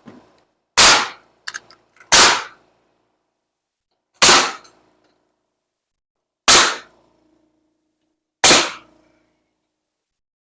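Pneumatic nail gun firing five single shots about two seconds apart, driving nails into wooden framing studs; each shot is a sharp crack with a short ring after.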